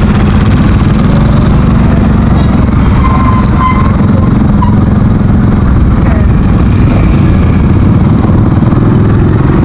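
Motorcycle running steadily as it rides slowly through town traffic, with a heavy, even low rumble.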